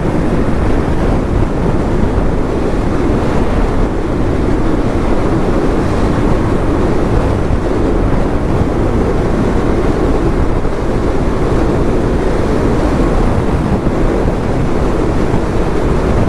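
Steady wind rushing over the microphone of a motorcycle riding at speed, mixed with the engine and road noise of the 2024 KTM 390 Duke.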